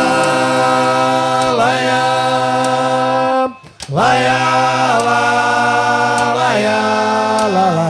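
Pagode music in a breakdown: several voices hold long notes in harmony, sliding between chords, with the drums and bass dropped out. The sound breaks off briefly about halfway before the held notes come back.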